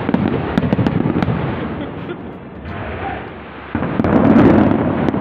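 Aerial fireworks bursting in quick succession: many sharp cracks over heavy booms. They ease off about two seconds in, then a sudden loud new volley breaks out just before four seconds in.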